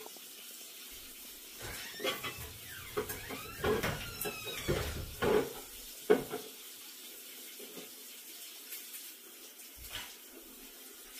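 Kitchen tap running into a farmhouse sink while things are handled under it, with a cluster of knocks and clinks in the first half.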